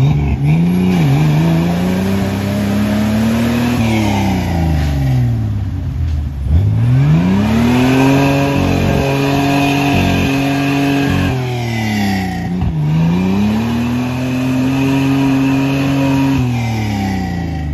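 An off-road Jeep's engine revving up hard, holding high revs for a few seconds and dropping back, three times over, as it is driven through deep mud.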